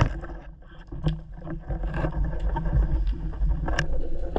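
Muffled underwater rumble of water and movement heard through a diver's camera housing, with a few sharp clicks: one at the start, one about a second in and one near the end.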